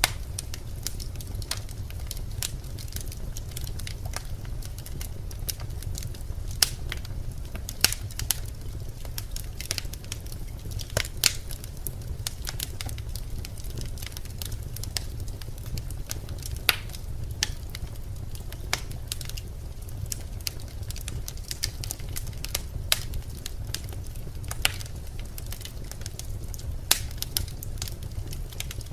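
Birch logs burning in a fireplace: irregular sharp crackles and pops over a steady low rumble of the flames, with a few louder pops scattered through.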